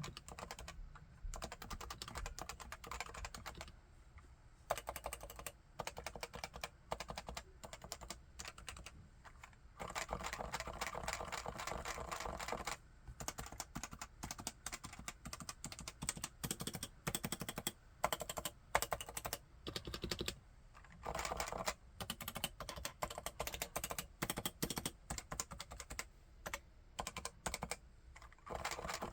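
Typing on a Leopold FC980C keyboard with 45 g Topre electrostatic capacitive switches: fast runs of keystrokes broken by a few short pauses.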